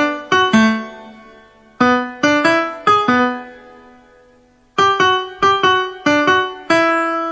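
Solo piano music: a simple melody of single notes, each struck and then fading, in two short phrases with a pause of about a second near the middle.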